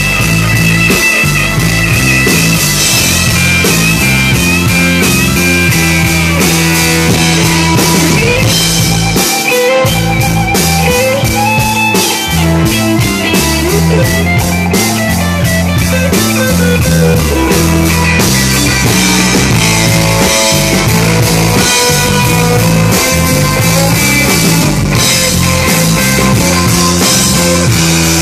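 Live rock band playing an instrumental stretch without vocals: a Telecaster-style electric guitar plays a lead with bending notes over electric bass and a steady, driving drum kit.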